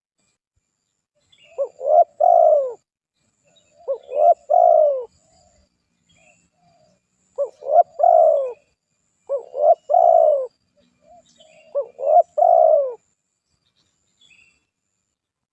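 Spotted dove (tekukur) singing: five cooing phrases, each a quick short note followed by two longer falling coos, repeated every two to two and a half seconds with pauses between.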